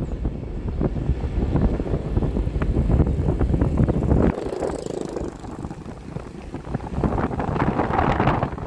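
Wind buffeting the microphone on a moving vehicle, with a heavy rumble that drops away suddenly about four seconds in, then a rougher rushing noise building again near the end.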